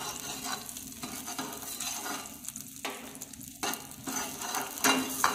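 Chopped garlic sizzling in hot olive oil in a stainless-steel frying pan, stirred with a metal ladle that scrapes and clinks against the pan several times.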